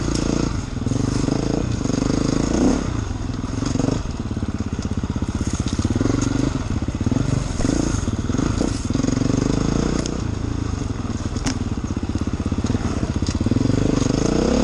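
Enduro dirt bike engine working along a rocky forest singletrack, its revs rising and falling with the throttle and pulsing steadily at low speed in between. Scattered sharp clicks and cracks come from stones and brush under and against the bike.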